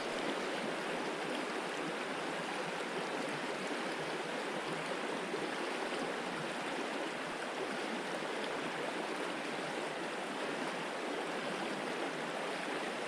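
Mountain trout stream running steadily: an even rush of flowing water.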